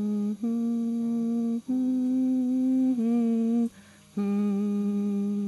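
A woman humming a slow tune in a few long held notes, with a short break about four seconds in.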